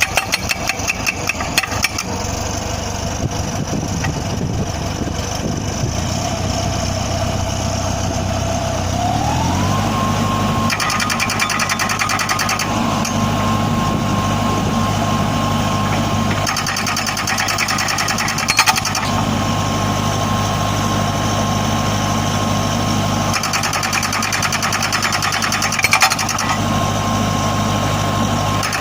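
Backhoe loader's diesel engine running, with a hydraulic breaker hammer striking rapidly for the first couple of seconds. About nine seconds in the engine speeds up and holds a higher steady note, with spells of extra rattle from the machine working.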